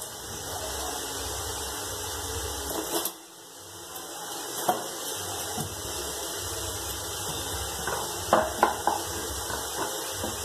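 Kitchen tap running into a stainless steel sink, shut off about three seconds in. Then a few sharp knocks, several in quick succession near the end, from a knife cutting broccoli on a wooden board.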